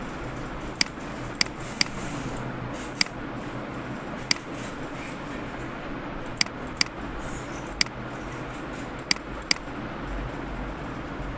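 Computer mouse clicking about ten times at uneven intervals, some clicks in quick pairs, over a steady low background hum.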